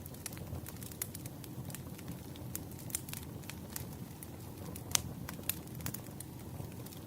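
Burning firewood crackling: a steady low rumble of flames with many sharp, irregular pops and snaps, the loudest about five seconds in.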